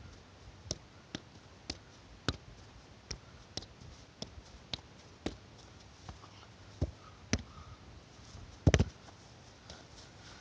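Soccer ball being juggled off bare feet and head: a light knock about every half second, thinning out after five seconds, with one louder double thud about eight and a half seconds in.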